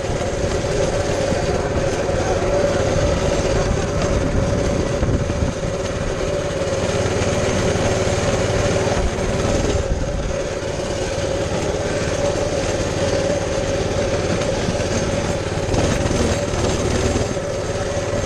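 Baja 200cc minibike's small single-cylinder engine running at a steady, even speed while the bike rolls across grass.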